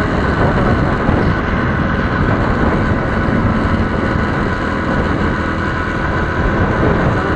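Motorcycle riding steadily at highway speed, heard from a helmet-mounted camera: the engine's running sound mixed with a steady rush of wind and road noise.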